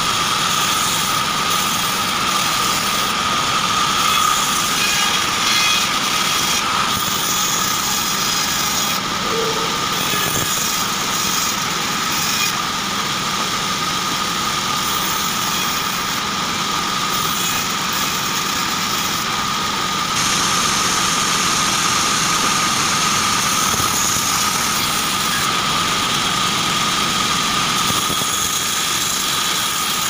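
Vertical band sawmill running steadily while short acacia logs are fed through the blade: a loud, even machine noise with a constant high-pitched tone.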